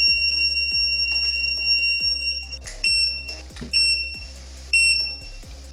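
A walking pad treadmill's electronic beeper sounds one long, high, piercing beep of about two and a half seconds, then three short beeps about a second apart. Background music with a steady beat plays underneath.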